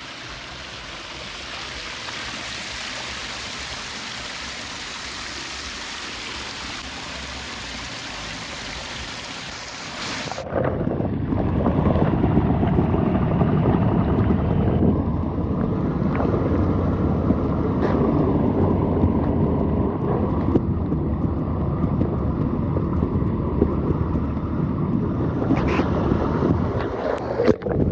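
Shallow stream water running over a concrete channel bed, a steady hiss. About ten seconds in it changes abruptly to the muffled, low rumble of water heard through a camera held underwater.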